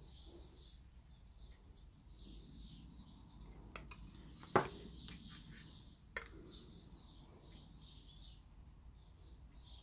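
Faint birdsong chirping in the background, with two sharp taps, about four and a half and six seconds in, from a wooden craft stick knocking against a plastic paint cup during stirring.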